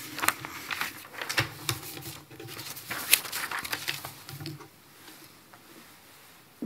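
Sheets of paper rustling and crinkling close to a podium microphone as they are gathered up, with a sharp crinkle about three seconds in; the handling stops about four and a half seconds in.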